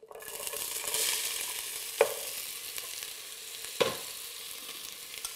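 Chopped onion hitting hot olive oil and smen in a pot and sizzling as it starts to fry. The sizzle builds over the first second, then holds steady while it is stirred. Two sharp knocks come about two seconds and about four seconds in.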